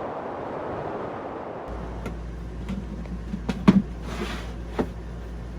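Steady background noise, then a low hum with a series of sharp knocks and clicks from handling things, the loudest cluster about three and a half seconds in and one more near the end.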